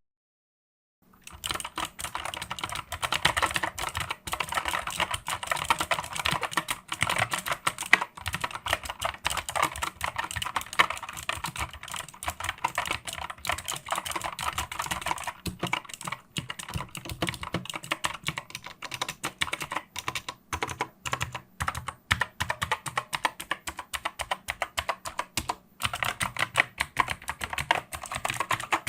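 LESHP HS328 full-size mechanical keyboard with Outemu Blue clicky switches being typed on fast, a dense, continuous clatter of key clicks. It starts about a second in.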